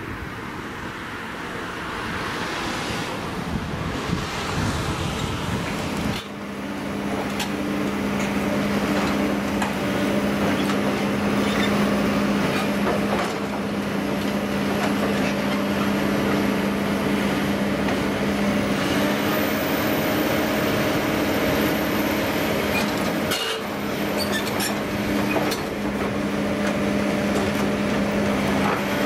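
A heavy machine's engine running steadily while a steel railcar body is scrapped, with scattered sharp knocks of metal. For the first six or so seconds there is only an even noise, then the engine hum comes in abruptly.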